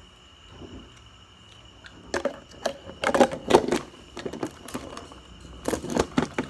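Handling noise from slime-making supplies: a run of sharp knocks and clatters as things are picked up and set down, starting about two seconds in and loudest around three to four seconds in and again near the end.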